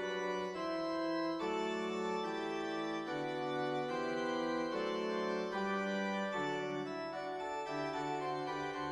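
Background music: slow sustained organ-like keyboard chords, changing about once a second.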